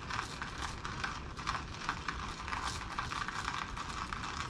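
Wood fire crackling, with a dense run of irregular small pops and snaps.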